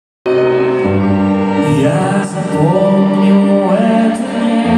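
Live band with a string section playing, heard from the audience in a concert hall: held chords under a melody that slides between notes. The sound cuts in suddenly a moment in.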